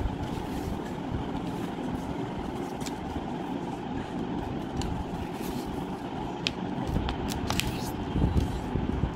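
Square craft paper being folded and creased by hand: several brief, sharp crackles of the paper over a steady low rumble of background noise.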